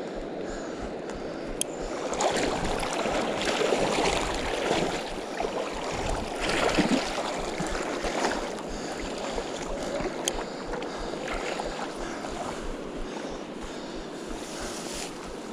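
Water splashing and sloshing in irregular surges as a hooked steelhead thrashes at the surface close to the bank, over a steady rush of river current and wind on the microphone. Two faint sharp ticks come about two seconds in and again around ten seconds.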